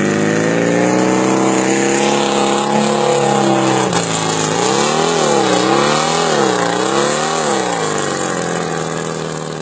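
Volkswagen Beetle's air-cooled flat-four engine working hard as the car ploughs through shallow water and mud. Its pitch climbs steadily over the first few seconds, then, from about four seconds in, rises and falls three times as the throttle is worked, before settling.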